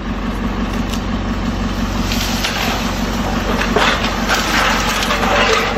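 An engine running steadily at a low pitch, with loud rough noise and scattered cracks and crunches over it.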